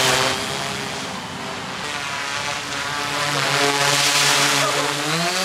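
V-Coptr Falcon bi-copter drone hovering close by, its two propellers giving a steady buzzing hum with a hiss of air over it. The pitch dips slightly about two-thirds of the way in and rises again near the end as the motors change speed.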